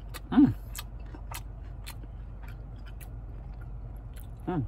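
A man chewing a freshly cooked, skewered tapioca snack, with small sharp mouth clicks, over a steady low car-cabin hum. There are two brief vocal sounds with a falling pitch, the louder one about half a second in and a shorter one near the end.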